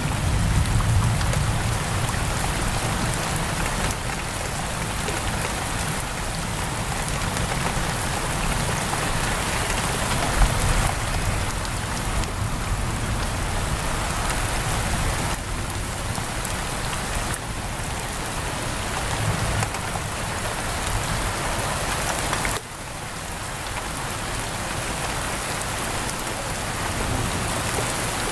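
Steady heavy rain pattering on a window, with a low thunder rumble dying away in the first second or so. There is a single sharp snap about ten seconds in, and the rain drops suddenly in level about two-thirds of the way through.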